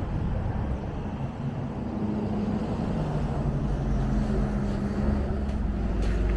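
A motor vehicle's engine running nearby: a steady low hum whose pitch shifts a little up and down.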